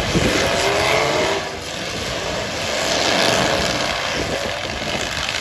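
Eight-cylinder demolition-derby car engines revving hard, their pitch rising and falling over a loud, noisy background.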